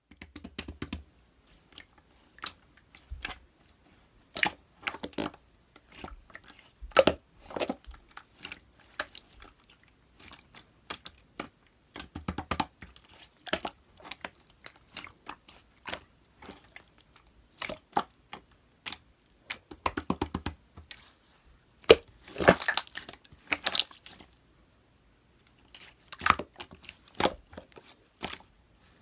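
Clear slime being squished and kneaded by hand as glitter is mixed in, making irregular sticky clicks and wet pops in clusters with short pauses between.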